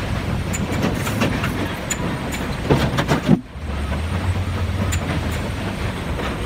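Sawmill log-handling conveyor machinery running: a steady low rumble with scattered metallic clanks and knocks, the loudest a couple of heavy knocks about three seconds in, after which the noise drops briefly and picks up again.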